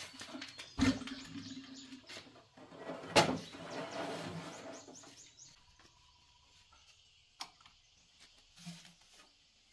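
A diesel engine slung from a bamboo pole is set down on a dirt floor: two heavy thuds with knocks, about two seconds apart, the second the louder, then fainter scraping and shuffling.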